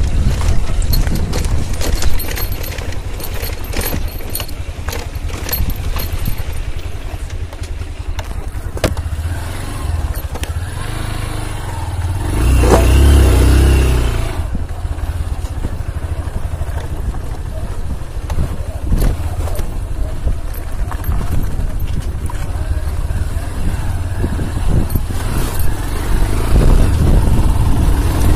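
Motorcycle engine running on a rocky off-road trail under a constant low rumble, swelling loudest for about two seconds halfway through.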